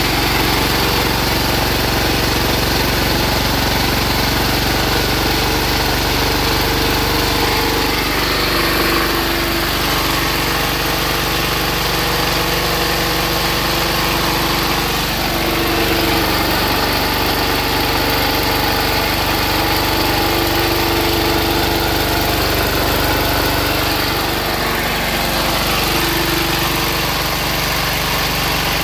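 Single-cylinder air-cooled diesel engine, converted to high-compression wood-gas running, running steadily while driving a generator.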